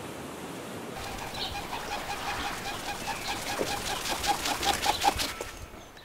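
Kereru (New Zealand pigeon) wingbeats: a rhythmic series of strokes that starts about a second in, comes faster and louder, then stops shortly before the end.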